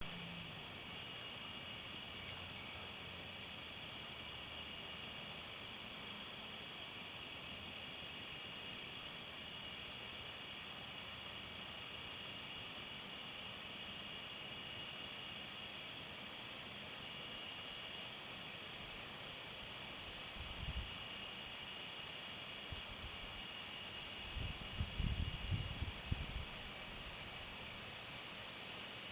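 Steady chorus of night insects, a dense high pulsing trill with a thin steady whine under it. A few low bumps come about two-thirds of the way in and again in a short cluster near the end.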